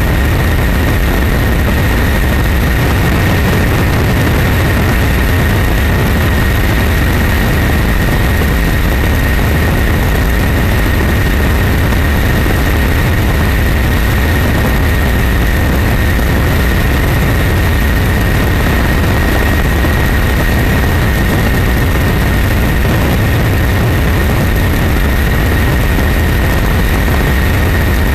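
Aircraft in flight, engine noise as heard on board: a steady, loud deep rumble with a high, steady whine above it, unchanging throughout.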